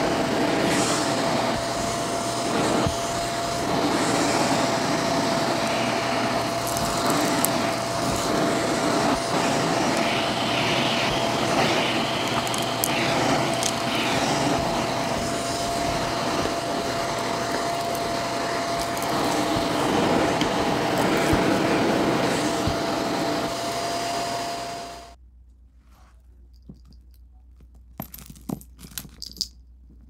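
Shark vacuum cleaner running over carpet: a steady motor and airflow rush with a thin steady whine. It cuts off suddenly about 25 seconds in, leaving a few faint clicks.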